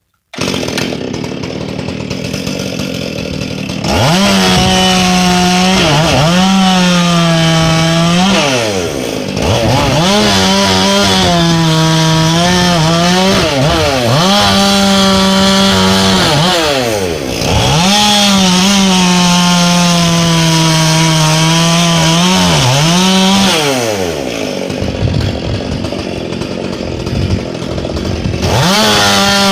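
Gas two-stroke chainsaw with a full-chisel 3/8" chain cutting wood: it idles, then runs at full throttle, its pitch sagging as the chain bites and climbing again several times. Near the end it drops back to idle for a few seconds, then revs up again.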